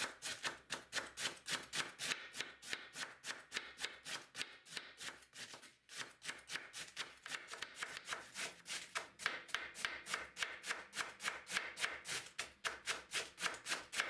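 Large kitchen knife shredding a head of white cabbage on a wooden cutting board: quick, even chopping strokes, about four or five a second, with a short break about six seconds in.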